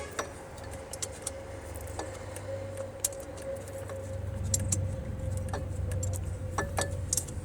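Scattered light metallic clicks and clinks of a 3/8 socket on a combination wrench tightening the bolt of an engine ground cable, the ground feeding the alternator. A steady background hum with a faint steady whine runs beneath.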